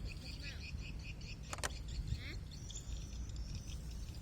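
Birds chirping outdoors in quick repeated high notes, with a sharp double click about a second and a half in and a steady low rumble underneath.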